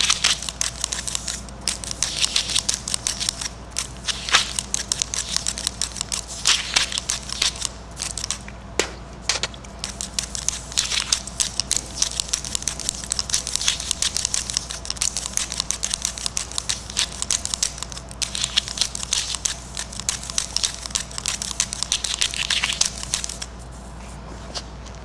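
Several pen-like marking sticks taped to the fingers of a hand scratching and tapping rapidly over paper: a dense, scratchy scribbling that stops about a second and a half before the end, leaving only a low steady hum.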